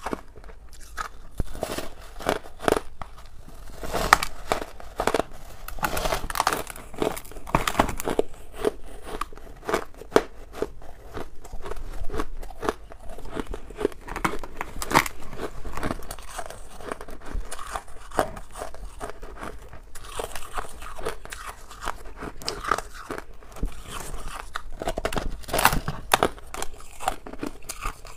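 Crunchy white frost ice being bitten, chewed and crumbled by hand: a dense, irregular run of crisp crunches and crackles.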